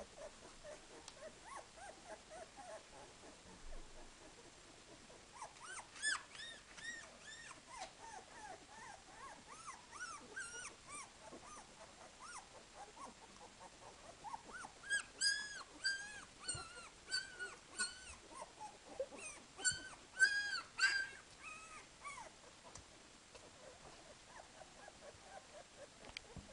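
Newborn Dalmatian puppies, twelve days old, squeaking and whimpering in short, high, arching cries. A flurry comes a few seconds in, then a longer, busier run of cries through the middle, loudest about two-thirds of the way through, with fainter squeaks between.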